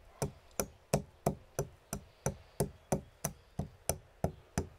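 Stone pestle pounding black peppercorns in a stone mortar: a steady, even knocking of stone on stone, about three strokes a second.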